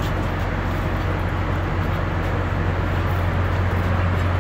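Steady drone of a ship's running machinery: a constant low hum under broad even noise.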